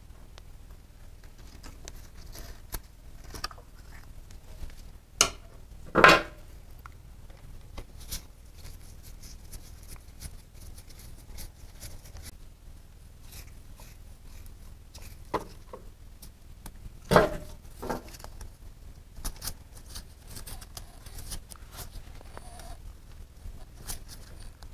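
Handling and scrubbing of a plastic motorcycle coolant reservoir tank being cleaned with a bottle brush: scattered clicks, scrapes and knocks, with two louder knocks about six and seventeen seconds in.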